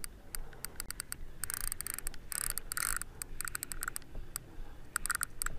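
Spinning fishing reel clicking under strain from a big hooked fish: scattered sharp clicks and short quick runs of clicks, with brief hissing stretches, as line is worked against the fish.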